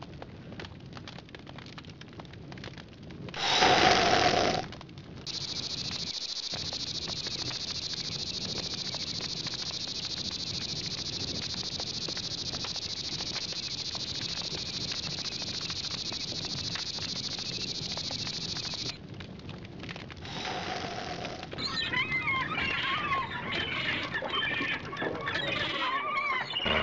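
Night-time sound design: a wood campfire crackling, a short loud swell with a held tone about four seconds in, then a long steady high-pitched hiss. A second swell comes about twenty seconds in, and high warbling chirps and squeals follow near the end.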